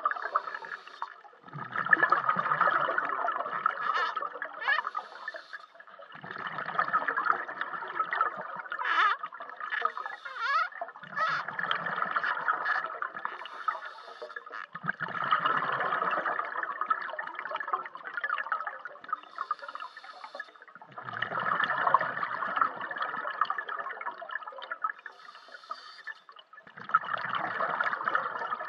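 Scuba diver breathing through a regulator underwater: each exhalation comes out as a gurgling rush of bubbles, in a repeated cycle of about one breath every five seconds.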